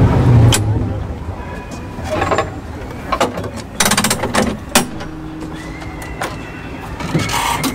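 Clicks and clanks of a vintage tram's brass AEG hand controller being worked through its notches, over the lower running rumble of the tram on its rails. The rumble is loud at first and drops about a second in.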